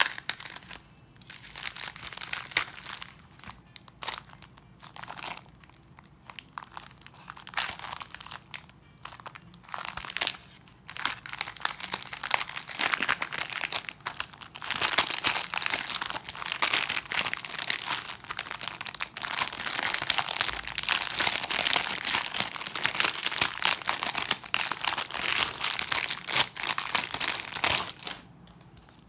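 Plastic packaging crinkling and rustling as a bubble mailer is slit open and a phone case is worked out of its plastic sleeve. The crinkling comes in short bouts at first, runs almost without a break from about halfway through, and stops just before the end.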